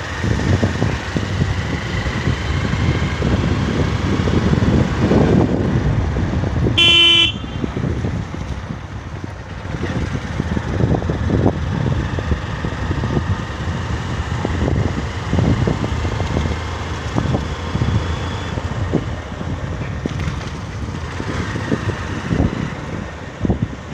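Steady, gusty rumble of travelling along a road in a vehicle, with wind on the microphone. A vehicle horn beeps once, briefly, about seven seconds in.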